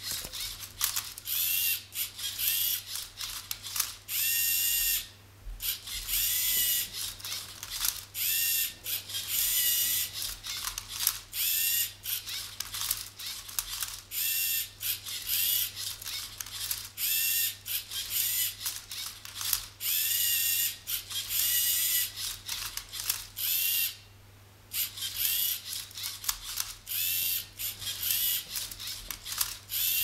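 Lego Mindstorms robot motors whirring in quick bursts, each rising and falling in pitch, as the robot turns and tips a Rubik's cube, with clicking and rattling from the cube and plastic gears. The whirring stops briefly twice, about 5 and 24 seconds in.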